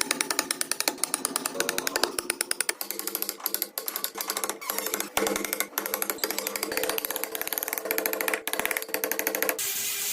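Background music with a fast, clicking percussive beat. Near the end it gives way to a steady hissing noise.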